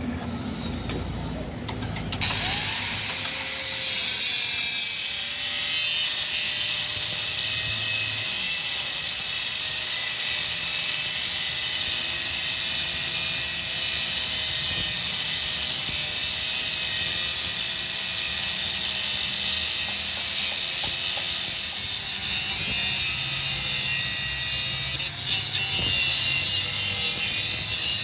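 A power tool running steadily against metal, a loud hissing grind with a slowly wavering motor tone under it, starting about two seconds in.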